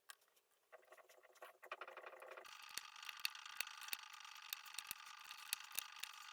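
Light plastic clicks at an irregular pace, as of keycaps on an Amiga keyboard being pressed and handled. The clicks are sparse at first, then come thick and fast over a thin, trebly hiss from about two seconds in.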